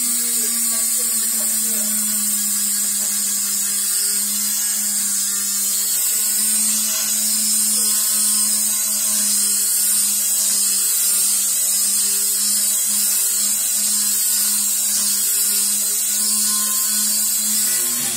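DEKO handheld rotary tool running at high speed with a diamond bit, grinding to widen the valve hole in a ceramic toilet cistern. It makes a steady high-pitched whine over a low hum.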